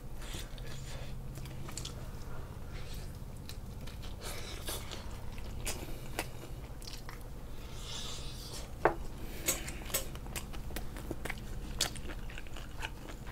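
Fried chicken being bitten and chewed, with scattered crisp crackles and clicks over a low steady hum.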